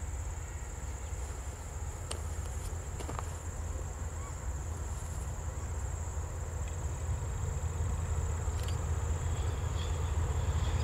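Distant diesel-electric DXR-class locomotive hauling a freight train, its low engine rumble slowly growing louder as it approaches. A steady high insect chirr runs over it.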